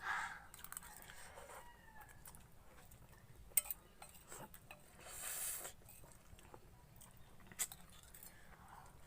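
Faint eating sounds: a few sharp clicks of cutlery on a plate, and a breathy noise lasting about half a second, about five seconds in. Faint short animal calls can be heard in the background near the start.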